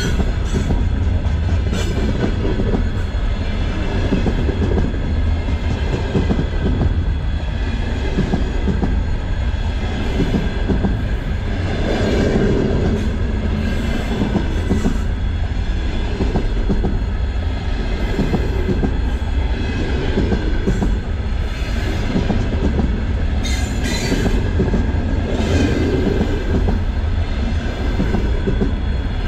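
Container freight train of flat wagons rolling steadily past at close range: a continuous rumble of wheels on the rails, with thin high wheel squeal and sharp clicks as wheels cross rail joints.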